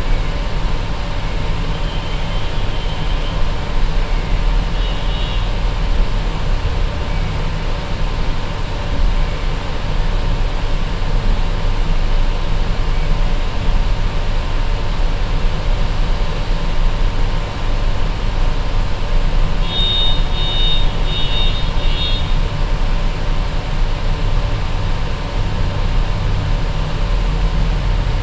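Steady low hum and rumble of room noise, with short high electronic beeps from a fibre-optic fusion splicer: a few beeps about two and five seconds in, and a quick run of beeps about twenty seconds in.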